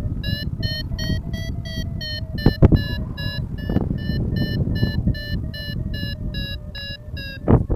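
Paragliding variometer beeping its climb tone, a steady run of short high beeps about three a second, signalling that the glider is in rising air. Wind rumbles on the microphone underneath, with a loud gust near the end.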